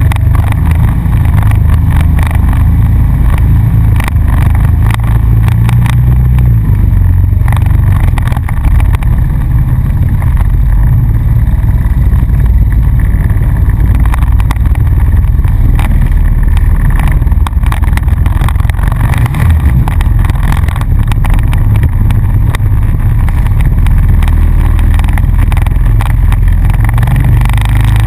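ATV engine running steadily as the quad is ridden along a rough dirt trail, heard loud and close from a camera mounted on its front rack. Frequent short knocks and rattles come from the rack and body jolting over the bumps.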